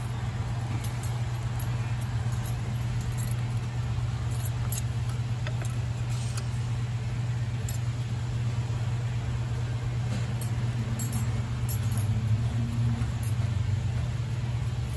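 Light, scattered metal clinks as the steel locking ring and lock nut are worked loose by hand from the steering rack's bearing housing, over a steady low hum.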